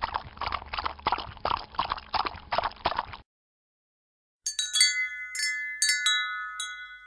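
Rapid, irregular clicking and tapping for about three seconds, then a moment of silence, then a wind-chime jingle: about eight chime notes struck one after another and left ringing over each other.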